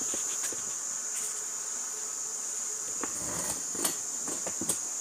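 A steady high-pitched trill, with a few light knocks and clatter in the second half.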